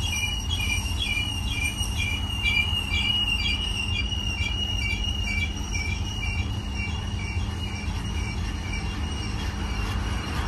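BNSF double-stack intermodal train rolling slowly past: low rumble of the cars on the rails, with a steady high wheel squeal and a rhythmic high pulsing about two to three times a second.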